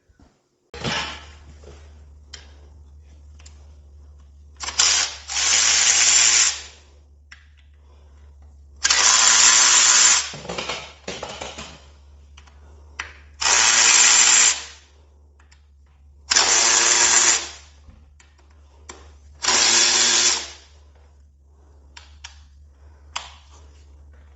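A handheld power tool, run in five bursts of one to two seconds each, spinning out the bolts of a Harley-Davidson primary drive, with small clicks of tool and parts handled between bursts.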